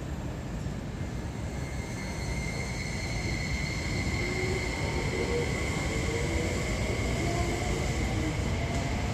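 Tokyo Metro 05 series electric train pulling away and accelerating, with a low rumble of wheels and running gear. From about two seconds in a steady high whine sets in, and from about three seconds in the traction motors' tones climb steadily in pitch as the train gathers speed.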